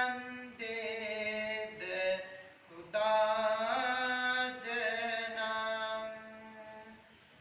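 A Buddhist monk chanting in Pali: a single male voice holding long, steady notes in slow phrases, with short breaks between them.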